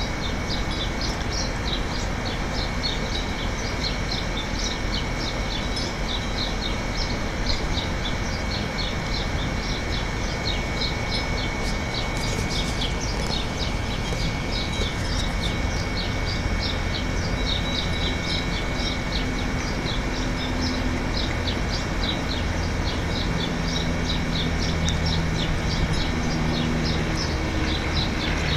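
Outdoor ambience: small birds chirping rapidly and continuously over a steady rush of background noise. A faint low drone comes and goes in the second half.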